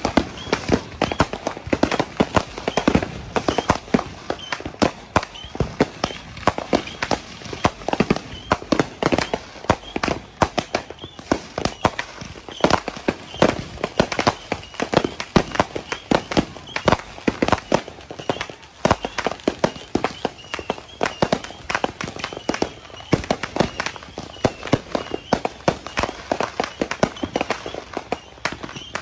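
Many fireworks and firecrackers going off all around at once: a dense, unbroken barrage of sharp bangs and pops, several a second and overlapping.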